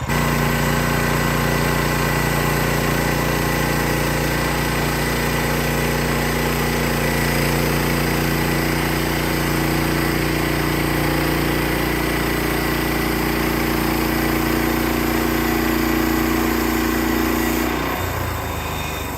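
Gas engine of a portable band sawmill running steadily at speed during a cut. Some of its tones drop out near the end, just before the sound stops abruptly.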